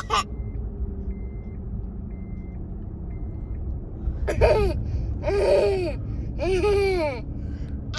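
A girl's fake coughs: three short, voiced, falling-pitched coughs about a second apart in the second half, over a steady low rumble.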